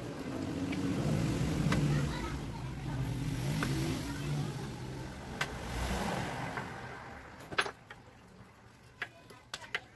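A motor vehicle's engine passing by, growing louder over the first couple of seconds and then fading away. Near the end come a few sharp clicks of small parts being handled and fitted on the air rifle.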